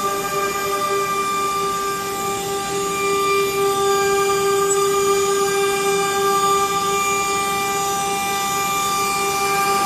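9 kW HQD air-cooled CNC router spindle running at speed and cutting a wood-based board, a steady high whine over the hiss of the cut.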